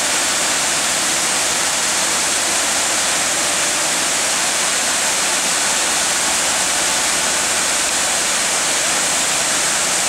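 Waterfall with many streams spilling over low rock ledges into a pool: a steady, even rush of water.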